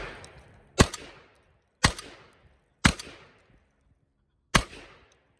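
Firearm fired four times: three shots about a second apart, then a longer pause before the fourth. Each shot rings off in a short echoing tail.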